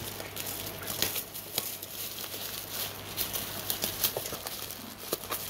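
Hands crinkling and rustling a plastic bag and taped cardboard packaging while unwrapping a bicycle helmet, with many small sharp crackles, over a faint low hum.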